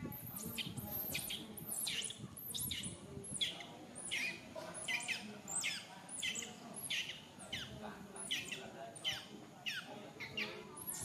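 Baby macaque crying: a run of high squeals, each falling in pitch, about two a second, with fainter lower whimpers in between.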